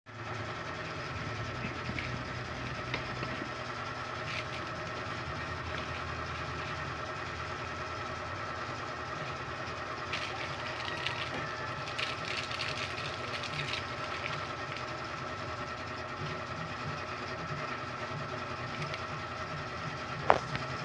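A steady machine hum with a high tone in it runs throughout, under scattered light rustles and taps of cardboard and paper being handled, most of them between about ten and fourteen seconds in.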